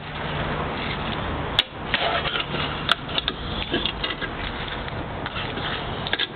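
Fingerboard clacking against a wooden ledge obstacle: two sharp clicks, about a second and a half in and near three seconds, and a few lighter taps and scrapes over a steady hiss.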